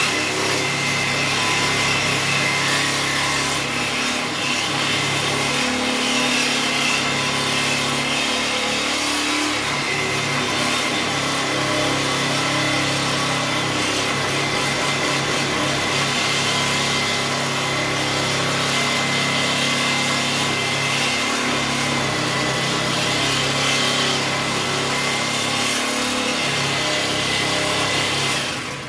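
A handheld power tool running steadily against the steel frame of an International Scout 800, with a steady high whine over a rough grinding noise, then cutting off sharply at the end.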